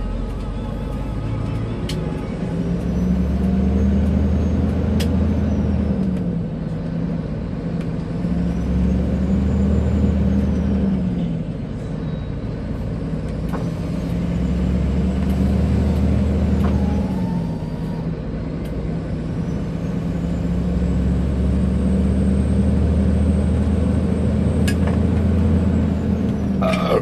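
Scania 124L 420 truck's six-cylinder diesel pulling under load, rising in pitch and then dropping back briefly about four times as it works up through the gears. A faint high whistle rises and falls with it.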